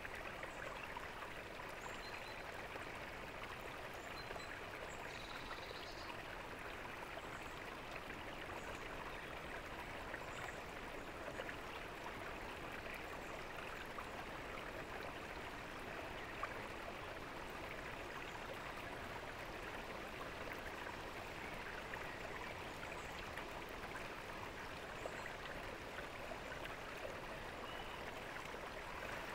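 A fountain's water splashing and trickling steadily, without a break.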